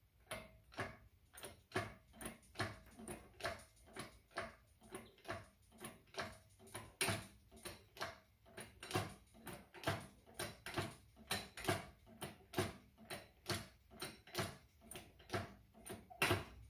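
A paintbrush laying ceramic engine paint onto a cast-iron engine block and oil pan, in quick regular strokes at about two to three a second.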